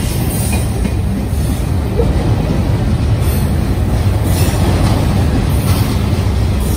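Double-stack intermodal well cars of a freight train rolling past close by: a steady, loud rumble of steel wheels on rail, with a few brief higher hisses over it.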